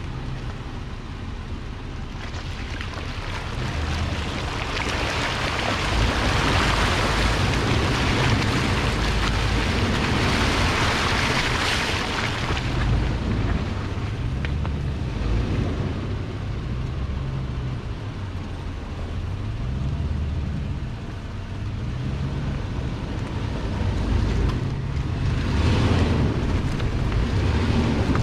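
An off-road vehicle's engine runs with a low, steady rumble as it drives a rough dirt trail. From about four to twelve seconds in, a loud rushing, splashing noise sounds as the tyres go through muddy puddles. A few knocks from bumps in the track come near the end.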